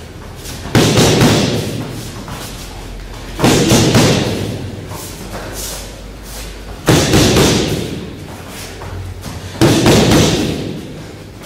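Boxing-glove punches smacking into hand-held striking pads: four loud hits, roughly every three seconds, each ringing on in the hall afterwards.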